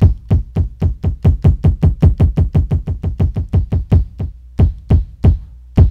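Layered kick drum samples on a Maschine pad, played in a rapid run of about six hits a second with a short break about four seconds in. Each hit drops in pitch, and the kick gets lower as the layer's tune is turned down.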